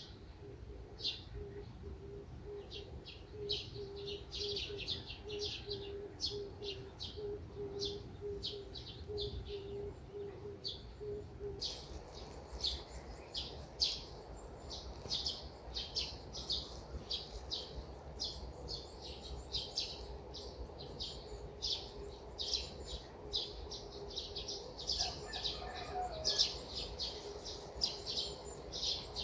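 Small birds chirping, a busy run of short, high chirps. A faint steady low tone lies underneath for the first dozen seconds.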